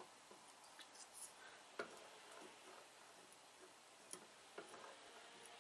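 Near silence with a few faint, short clicks and taps as the drill press's chuck and quill are lowered onto a barrel clamped in a vise, the loudest about two seconds in.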